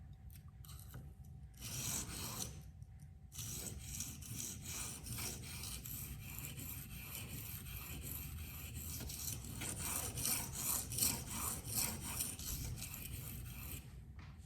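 K390 steel knife blade stroked back and forth on a coarse 240F Venev diamond waterstone, a gritty scraping. There is one short pass about two seconds in, then steady repeated strokes from about three seconds in that stop just before the end.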